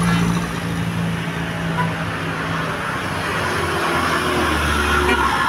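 Road traffic with heavy-vehicle engines running steadily. The hum drops to a lower pitch about halfway through.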